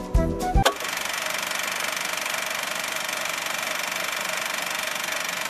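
Closing music with flute-like tones cuts off under a second in and gives way to a steady whirring noise with a fast, fine flutter.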